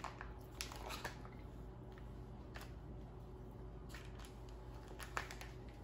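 Faint scattered rustles and soft handling noises: raw bacon strips being pulled from a plastic package and laid on parchment paper on a baking sheet, over a low steady hum.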